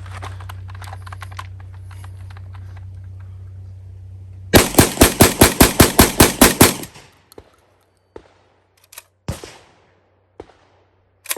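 SDS Lynx 12-gauge semi-automatic shotgun firing a fast string of about ten shots, roughly four a second, starting about four and a half seconds in. Before the string there is a steady low hum with light clicks.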